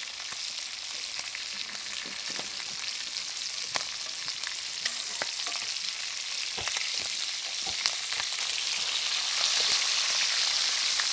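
Chicken pieces sizzling in oil in a glazed earthenware dish over a wood fire, with a metal spoon clicking and scraping against the dish as the meat is basted. The sizzle grows louder near the end.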